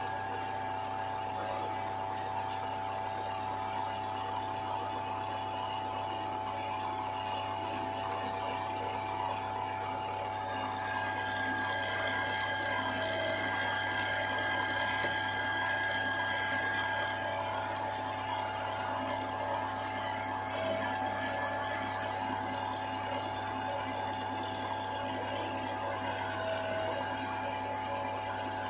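Electric mixer grinder running steadily, its blades churning thick donut batter in a steel jar: a constant motor hum with a wet churning sound, slightly louder in the middle.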